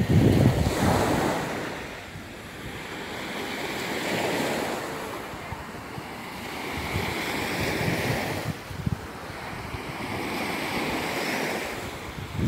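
Surf of the Sea of Azov washing onto a sandy beach, swelling and fading about every three to four seconds, with wind buffeting the microphone in the first second.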